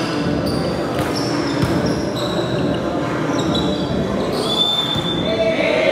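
Indoor volleyball rally: sneakers squeak on the hardcourt floor several times in short high squeals, with a few sharp hits of the ball, over a reverberant gym background.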